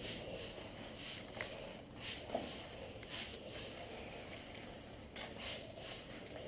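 Faint rustling: several soft swishes, some in quick pairs, over a low background hush.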